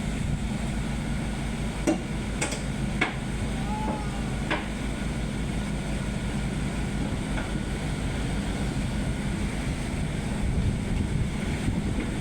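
Diesel engine of heavy earthmoving machinery running steadily, with a few sharp knocks about two to four and a half seconds in.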